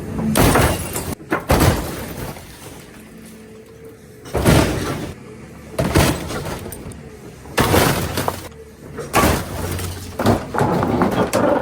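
Repeated crashes with breaking glass, about eight heavy impacts spread a second or two apart, some smashes lasting half a second or more.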